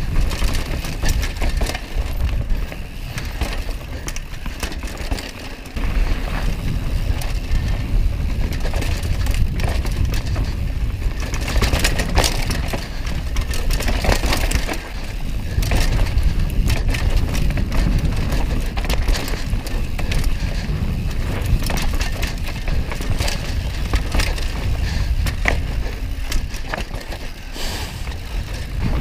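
Mountain bike ridden fast down a dirt woodland trail, heard from a camera on the rider: a steady low wind rumble on the microphone, with tyre noise on dirt and constant rattling clicks and clatter from the bike over bumps.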